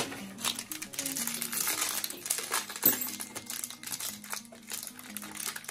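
Plastic packaging crinkling and rustling as a small packaged item is handled and opened by hand, with one sharp click about three seconds in, over background music.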